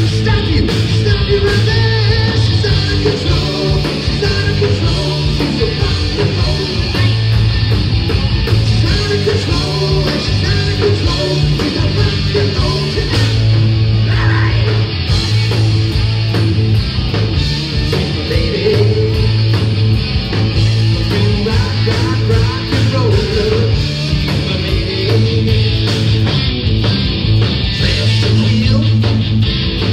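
A live rock band playing loud: electric guitars, bass and drums, with a repeating bass line and a steady drum beat.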